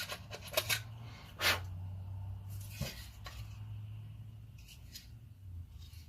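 Clicks, light knocks and brief scrapes of the sander's plastic housing and small parts being handled and pried during disassembly, thickest in the first three seconds, over a steady low hum.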